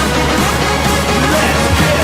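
Background music, loud and steady, with no speech.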